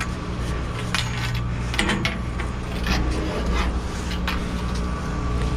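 Long metal pipes knocking and scraping, about half a dozen sharp knocks, as they are forced by hand in an attempt to bend them. A steady low vehicle engine hum runs underneath.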